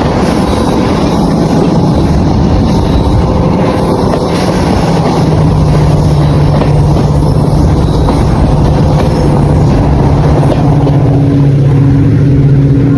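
Class 55 Deltic diesel locomotive's two Napier Deltic two-stroke engines running loud and steady. A low hum comes to the fore about five seconds in, and a higher hum joins it near the end.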